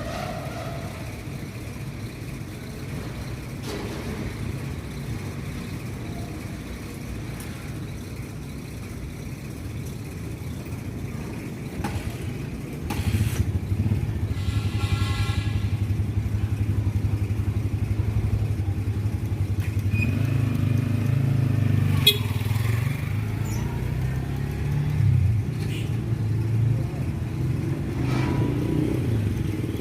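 A motor vehicle engine running steadily with a low rumble, growing louder about a third of the way in. A few sharp clicks come near the two-thirds mark.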